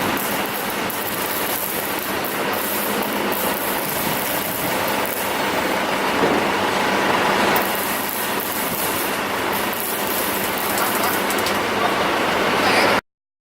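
900 kVA Cummins diesel generator set running steadily under power, a loud, even machine noise that cuts off abruptly near the end.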